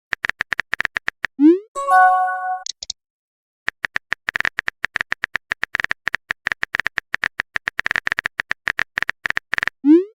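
Phone keyboard typing clicks in rapid trains. A rising swoop of a message being sent comes about a second and a half in, followed by a short chime. After a pause the typing resumes about four seconds in and runs densely, and another rising swoop comes near the end.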